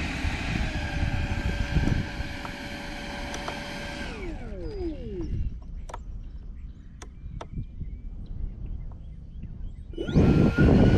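110 mm electric ducted fan of an RC jet with a 780kv Hacker motor whining at low taxi power. About four seconds in it spools down, its pitch falling away, leaving a quieter spell with a few sharp clicks. About ten seconds in the fan throttles up again suddenly and loudly.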